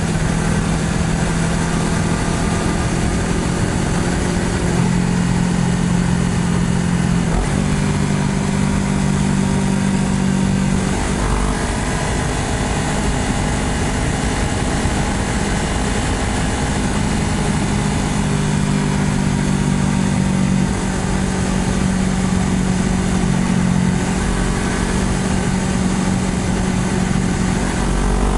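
Honda CBR250RR motorcycle engine running under way at fairly steady revs, its note shifting in steps a few times, over a continuous rushing noise of wind and road. Near the end the revs start to climb.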